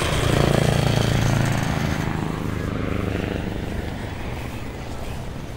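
Eurocopter BO-105 helicopter's rotor and twin turbines passing overhead, loudest in the first second or two, then fading as it moves away.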